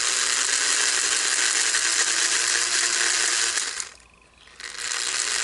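American Flyer 300AC locomotive's electric motor running on power fed straight from the transformer to its terminals, whirring with its gears and drive wheels spinning. It cuts out for about half a second near the four-second mark, then starts up again. Running this way shows the motor itself works and the fault lies in the tender's wiring.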